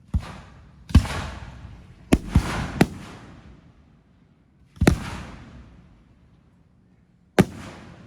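Fireworks going off at an irregular pace: about seven sharp bangs, three of them close together a little after two seconds in, each trailing off over a second or so.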